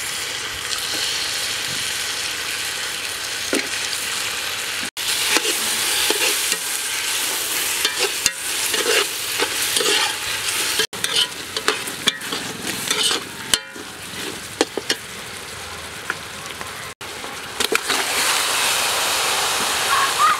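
Curry paste and sliced garlic sizzling in hot oil in an aluminium pot, stirred with a metal spoon that scrapes and taps against the pot.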